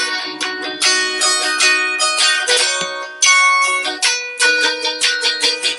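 Limited-edition 1956 roasted-ash Fender Stratocaster played clean through an amplifier on the neck-and-middle pickup setting: a quick indie-style part of picked notes and chord fragments, really articulate and shiny.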